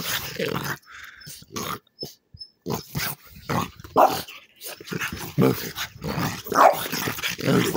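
A dog growling and barking in short, irregular bursts during rough play.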